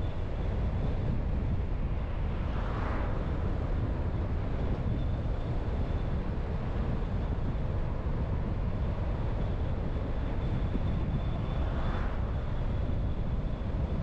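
Car driving at steady speed: a constant low rumble of road and engine noise, with two brief whooshes, about three seconds in and near the end.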